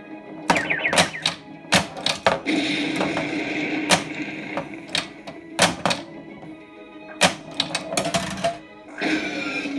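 Stern Meteor pinball machine in play: repeated, irregular sharp clacks of flippers, bumpers and solenoids as the ball is hit around, over the game's replacement sound effects and music played from WAV Trigger sound clips through a speaker.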